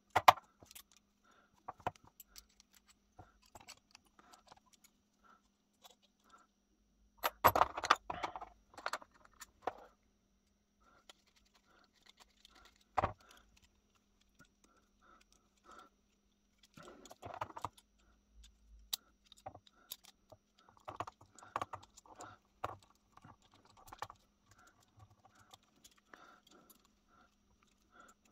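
Small steel gun-lock parts and hand tools clinking and clicking as an antique percussion pistol's lock is put back together: locking pliers and a screwdriver handled against the metal frame and screws. Irregular light clicks, with a burst of louder clattering about seven seconds in and more clusters later.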